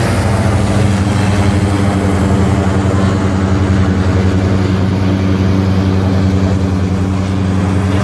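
Zeppelin NT airship's propeller engines running steadily as it climbs away overhead after take-off: a loud, low, fast-pulsing drone.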